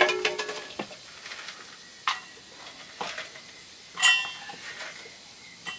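Metal utensil clinking and scraping against a metal cooking pot, with about five sharp ringing clinks, the loudest about four seconds in.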